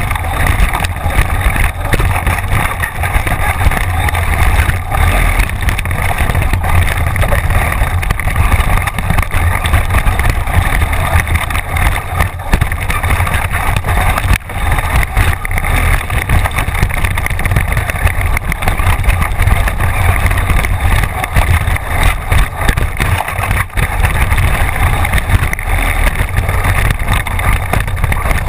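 Onboard sound of a Team Associated SC10 4x4 radio-controlled short course truck racing over a dirt track, heard from a camera mounted on the truck. There is a loud, steady rumble and hiss from the tyres, drivetrain and rushing air, with no clear motor pitch standing out.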